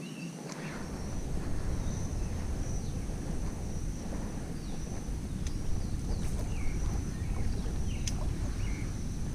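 Wind buffeting the microphone with a steady low rumble, with faint bird chirps in the background.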